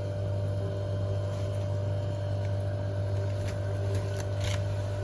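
Steady low electrical hum, with a few faint clicks in the second half.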